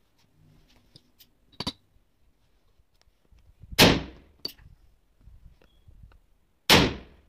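Two gunshots about three seconds apart, each with a short echoing tail. Faint clicks come in between from the black-powder loading tools and lead balls being handled.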